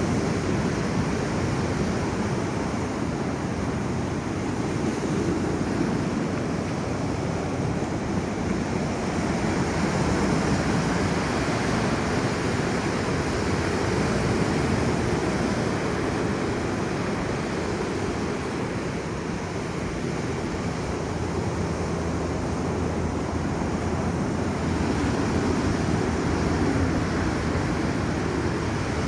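Ocean surf washing on the beach, a steady rush that swells and eases, with some wind on the microphone.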